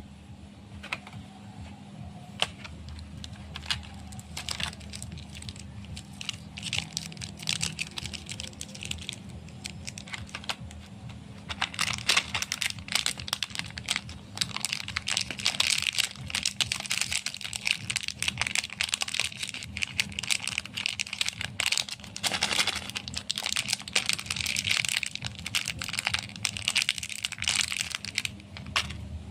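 Chocolate bar wrappers crinkling and crackling in the hands as they are handled and opened, with many small sharp crackles that grow louder and denser about halfway through, over a faint steady low hum.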